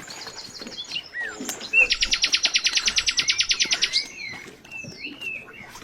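Songbirds calling: short chirps and whistled notes, with a loud, rapid trill of about eleven notes a second starting about two seconds in and lasting about two seconds.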